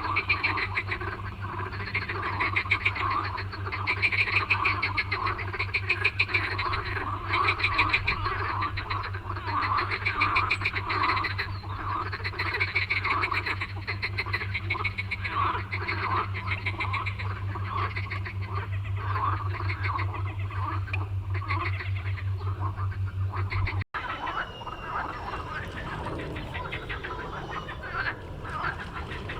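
A chorus of pond frogs croaking, many overlapping pulsing calls repeating over and over above a steady low hum. About 24 seconds in there is a sudden cut, and the croaking goes on more softly.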